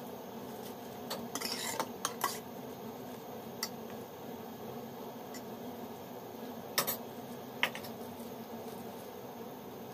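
Kitchen handling while filling ice candy bags: a brief scraping rustle, then a few sharp clinks and clicks of utensils against a steel pot, spread out over several seconds, over a steady low hum.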